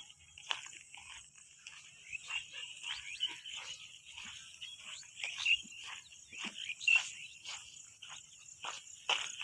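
Outdoor animal chorus: many short, falling chirps at irregular intervals over a steady high hiss.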